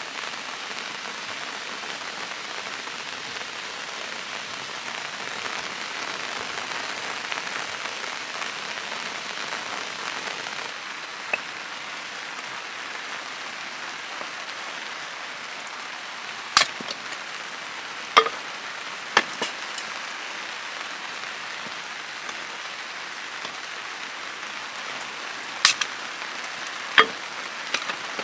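Steady rain falling, an even hiss, with a few sharp single taps or cracks now and then in the second half.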